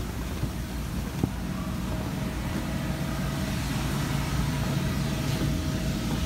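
Electric air blower running steadily, a low rumble with a faint steady whine, keeping an inflatable obstacle course inflated. A couple of faint clicks come in the first second or so.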